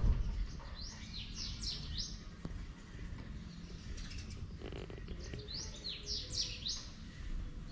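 A small songbird singing two short phrases of quick, high, sweeping chirps, about a second in and again near six seconds, over a low steady background rumble. A brief low thump sounds at the very start.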